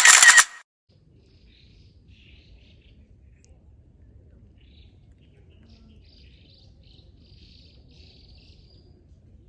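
A brief loud burst of noise right at the start, cut off sharply, then faint, scattered high chirping of small birds over a low, steady background.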